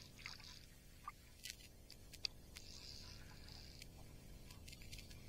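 Near silence, with a few faint scattered ticks and two soft brief hisses.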